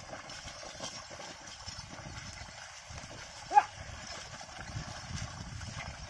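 A pair of bullocks wading and hauling a plough through a flooded paddy field: steady sloshing and squelching of hooves and plough in water and mud. About halfway through, one short, loud call rings out.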